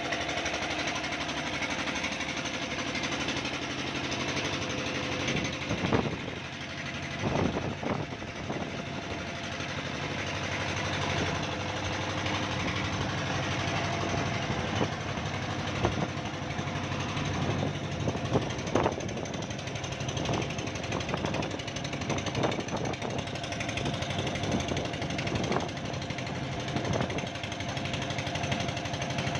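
Workshop machinery running steadily, with irregular sharp metallic knocks every few seconds.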